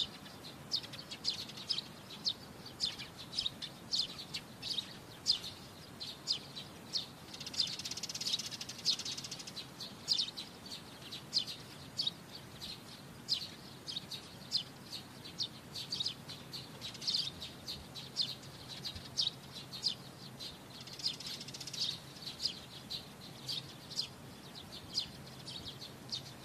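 Small birds chirping: short, high chirps repeated about once a second, with a denser run of twittering about eight seconds in and again a little before the end.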